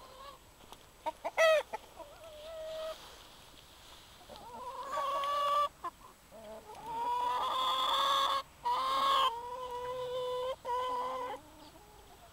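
Chickens calling: a few short, sharp calls about a second in, then a run of long, drawn-out calls from about four seconds in.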